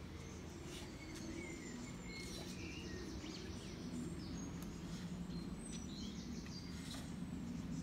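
Garden ambience: a steady low rumble, with small birds chirping briefly now and then.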